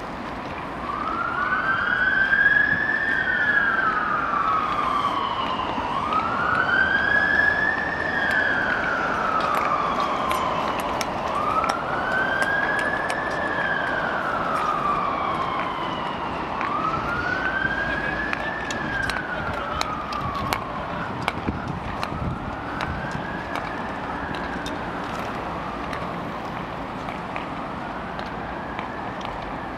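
Emergency vehicle siren wailing, sweeping slowly up and down in pitch about every five seconds, loudest in the first half and fading toward the end as it moves away.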